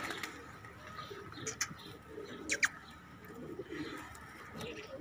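Pigeons cooing softly, with a few short, high, falling chirps near the middle.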